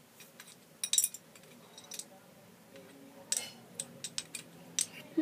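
Jenga blocks clicking and tapping against each other as a block is nudged and drawn from the tower: scattered short sharp clicks, a small cluster about a second in and several more in the second half.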